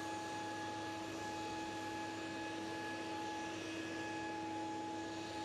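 A soft, steady hum made of a few held pure tones, with no change in pitch or level.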